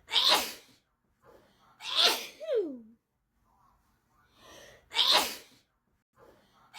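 A person in a sneezing fit: a quick in-breath, then a sharp sneeze, again and again, about four sneezes over a few seconds. One sneeze ends in a voiced cry falling in pitch.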